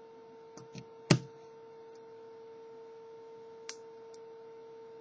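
Small plastic K'nex pieces being pressed together by hand: a few quick clicks, then a sharp snap about a second in as a part seats, and two faint ticks later on. A steady electrical hum runs underneath.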